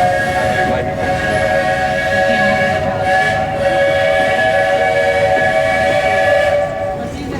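Buckeye three-chime steam whistle on a steam locomotive sounding one long, steady chord blast that cuts off near the end, over the rumble of the moving train.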